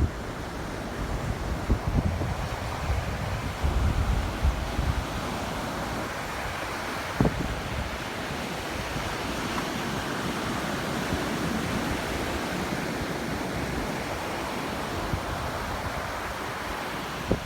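Ocean surf breaking and washing steadily, with wind buffeting the microphone in heavy gusts over the first five seconds or so. There is a single sharp click about seven seconds in.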